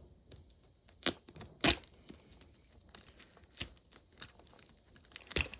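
A doorknob latch assembly being handled and taken apart: several sharp separate clicks and knocks, the loudest about one and a half seconds in, with light rustling between them.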